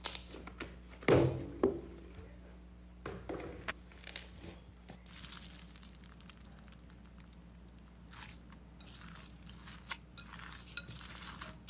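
Slime being handled: two sharp clicks about a second in, a few more clicks, then stretches of crackly, crunching noise.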